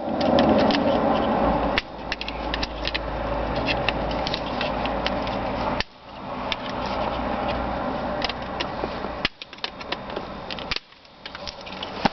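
Hard plastic parts of a car's power-window master switch being pried and worked by hand: scraping and rubbing with many sharp clicks and snaps, along with handling rumble close to the microphone.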